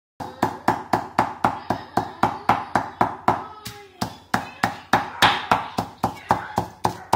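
Wooden pestle pounding in a rough granite mortar, crushing red chillies for som tam: steady knocks about four a second, with a brief break about halfway.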